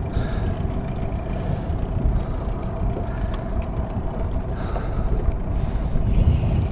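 Wind rumbling on the microphone over a steady low mechanical hum, with a few faint clicks.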